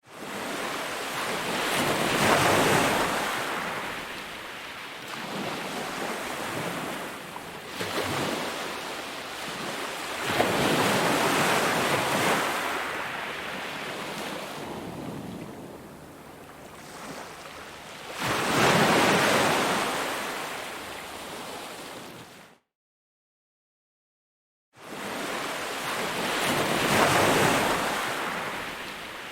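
Ocean surf: waves breaking and washing in, swelling and fading about every eight seconds. The sound cuts out completely for about two seconds near the end, then resumes with the next wave.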